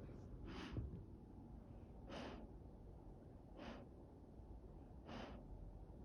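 Golden retriever puppy snoring softly in its sleep: four short, breathy snores at an even pace, about one every second and a half.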